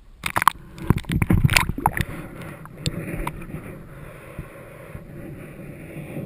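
Water splashing and knocking against a camera as it is dipped below the water's surface, with a cluster of sharp clicks and knocks in the first two seconds. After that comes a steady, muffled underwater rush.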